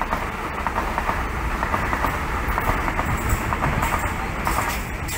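Sydney Trains electric suburban train running into a station platform: wheels on rail and traction noise as it comes alongside.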